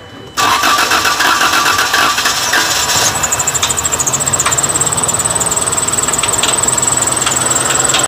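HEMI V8 engine running loud and close, coming in suddenly about half a second in, with a fast ticking over the engine noise. The tick is the strange noise in question, suspected to be the rocker arms or a bolt.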